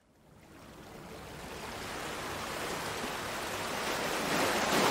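Sea waves washing onto a pebble shore, fading in gradually from silence and swelling toward the end.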